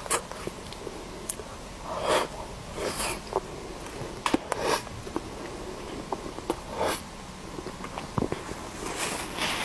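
Close-miked mouth sounds of eating soft cream-frosted cake from a spoon: wet smacking and chewing in irregular bursts every second or two, with a few small sharp clicks between them.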